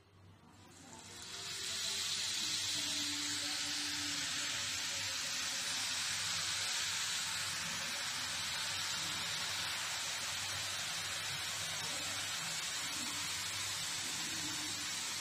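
Strands of besan (gram flour) sev dough sizzling in hot oil as they are pressed into the pan. The sizzle builds over the first second or two, then holds steady. The oil is still in full bubble, the sign that the sev is not yet cooked through.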